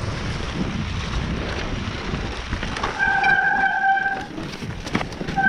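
Mountain bike ridden on a dirt forest trail: wind buffeting the microphone and tyres rumbling over the ground, with scattered clicks and rattles from the bike. About three seconds in, a steady pitched squeal from the bike lasts just over a second and returns briefly near the end.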